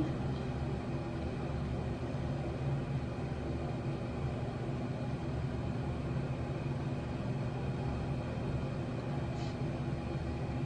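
Steady, unchanging low hum and rumble of a running motor or fan.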